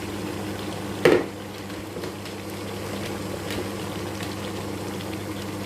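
Meat, potatoes and eggplant sizzling and frying in oil in a pot, a steady faint crackle over a constant low hum. A single sharp knock about a second in, like a utensil striking the pot.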